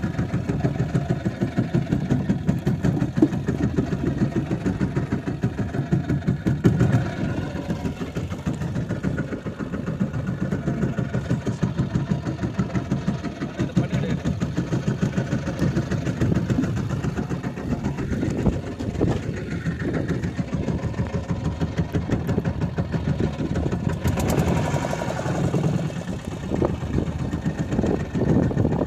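Fishing boat's engine running steadily, with a fast, even pulse.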